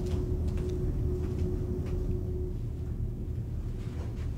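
Low steady rumble of room tone, with a faint steady hum that stops about two and a half seconds in and a few faint ticks.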